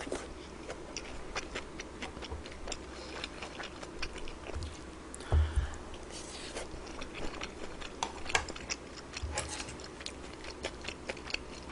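Close-up eating sounds: chewing with many small, sharp clicks and taps, and a dull low thump about five and a half seconds in.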